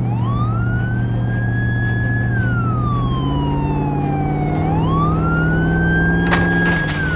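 Emergency-vehicle siren wailing: it rises, holds high, falls slowly over about two seconds, then rises again and holds. Under it runs a steady engine hum that steps up in pitch twice, and there is a sharp click near the end.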